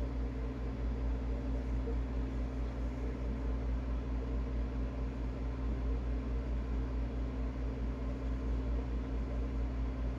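Commercial freezer's refrigeration system running with a steady low hum from the compressor and fans, with a slight regular throb. The compressor is running on a 3-in-1 hard-start kit and the unit is cooling down.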